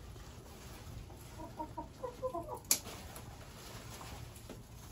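Chicken clucking: a quick run of about seven short clucks in the middle, followed by a single sharp click.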